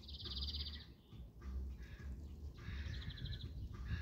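A small songbird's rapid high trill, once at the start and again, shorter, about three seconds in, over a low background rumble.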